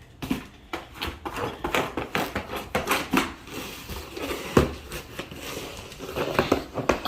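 A dog pawing and scratching at a cardboard box: a quick, irregular run of scrapes, taps and crinkles, several a second, with a louder knock about four and a half seconds in.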